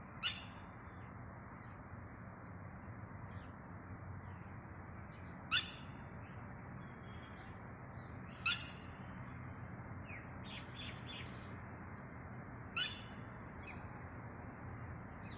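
A bird calling: four short, sharp, high calls a few seconds apart, with some fainter chirps between them, over a steady low background hiss.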